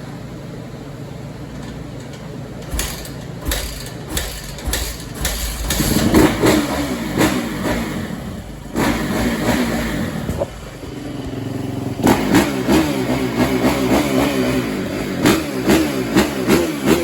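Yamaha YZ450 dirt bike's single-cylinder four-stroke engine running, idling for the first few seconds, then revved hard in sharp throttle blips. It is held at high revs for a couple of seconds in the middle, then blipped again rapidly over and over near the end.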